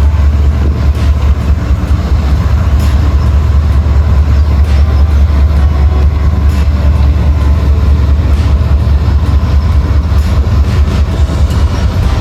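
Narrow-gauge freight train passing close by: a loud, steady low rumble, with a faint click roughly every two seconds as the wheels cross rail joints.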